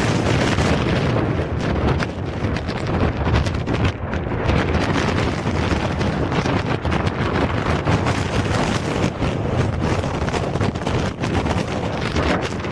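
Strong typhoon wind buffeting the microphone, over the steady rush of floodwater pouring out of a floodway outlet.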